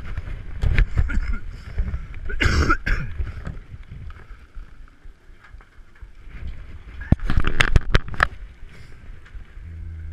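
Handling noise from an action camera being picked up and moved about: uneven rubbing and bumping, with a scraping rustle about two and a half seconds in and a quick cluster of sharp clicks and clinks about seven to eight seconds in.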